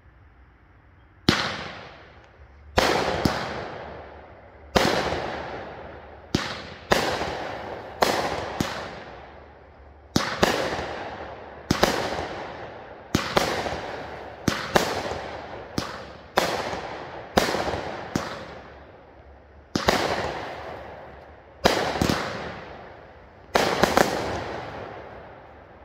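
Smoking Alien Fireworks 'Cerebrus' 200-gram consumer firework cake firing shot after shot: about twenty sharp bangs, one every second or so and some in quick pairs, each trailing off over about a second.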